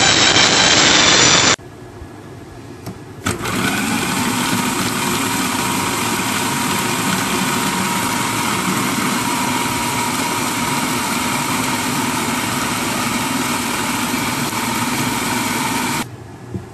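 Electric food processor running steadily for about twelve seconds, its blade chopping green chillies, coriander and bread, then switched off; a brief loud burst comes right at the start.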